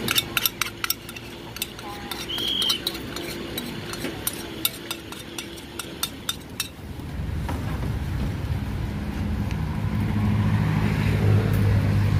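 A metal spoon scrapes and clinks against a metal pot as glass noodles are scooped out, a quick run of sharp clicks. From about seven seconds in, a passing vehicle's engine rumbles in and grows louder, drowning out the clinks.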